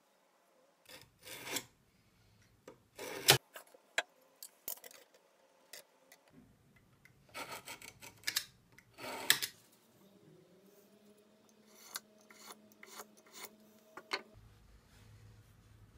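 Marking knife scribing lines into a birch board along a steel square: a series of short, scratchy strokes. They come with sharp knocks as the square and knife are handled against the wood, the loudest about three seconds in.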